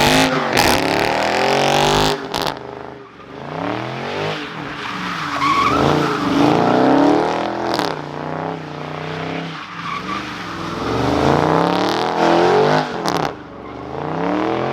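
Performance car engine revving hard again and again, its pitch sweeping up and falling back every second or two, while the tires squeal and skid as the car spins them on the pavement.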